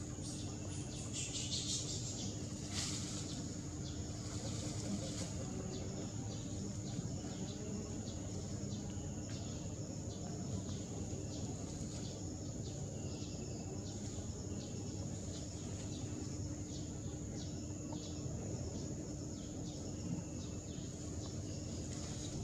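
Outdoor wildlife ambience: a constant high insect-like drone and a high chirp repeating about once a second, over a steady low rumble. There are a couple of brief rustles in the first few seconds.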